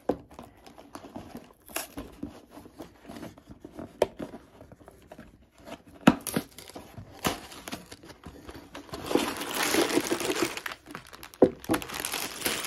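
A cardboard Lego set box being opened by hand: scattered taps and clicks, then from about nine seconds in a stretch of packaging crinkling and tearing, with one sharp click shortly after.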